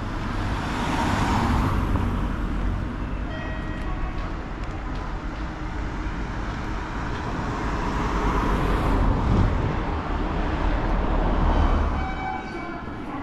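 Passing vehicles: a steady low rumble with the noise swelling and fading about three times, at about a second in, near eight seconds and near eleven seconds, easing near the end. Brief steady tones sound a few seconds in and again near the end.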